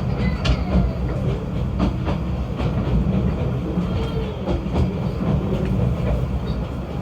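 Snowdon Mountain Railway rack-railway train running, a steady low rumble with irregular clanks and rattles.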